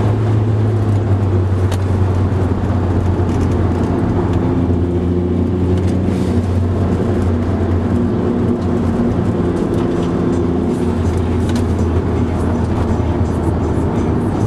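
Car engine running hard at track speed, heard from inside the cabin with tyre and wind noise; a steady drone whose pitch shifts a few times as speed changes.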